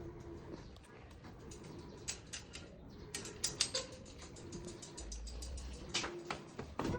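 A quick run of small clicks and taps in clusters, busiest about three to four seconds in and again near the end.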